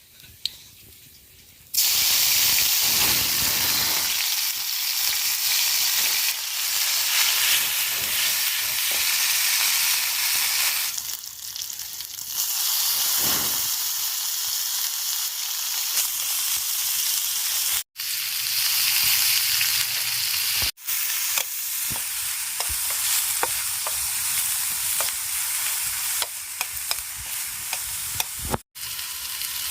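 Coconut grubs (gongo) sizzling loudly as they fry, a dense crackling hiss that starts abruptly about two seconds in. It cuts out for an instant three times, near the middle and near the end.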